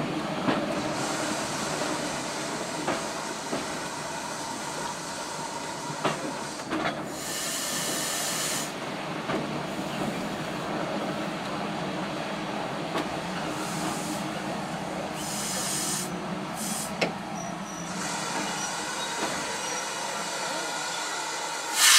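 A steam train rolling slowly, with a steady rumble, hiss of steam and scattered knocks from the wheels and rails. Louder bursts of steam hiss come about seven seconds in and again around fifteen to seventeen seconds, and a loud steam whistle starts at the very end.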